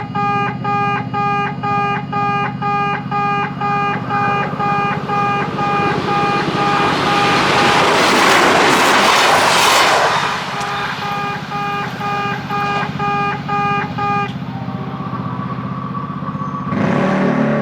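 Kintetsu station level-crossing alarm sounding its electronic 'pe-pe-pe' beeping, a pitched tone repeating two to three times a second in place of the usual bell. A train passes in the middle, swelling and fading over a few seconds. The beeping stops about three seconds before the end.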